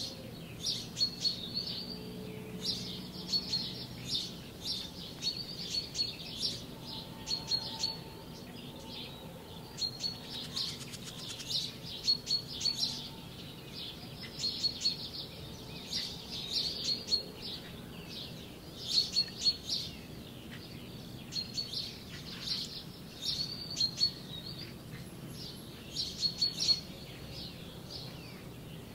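Small birds chirping and singing in short repeated phrases, a new phrase every second or two.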